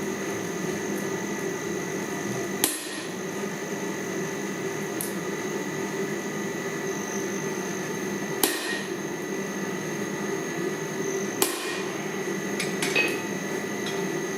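A handful of single sharp metal strikes several seconds apart, a hammer on steel at the anvil while forging, over a steady roar.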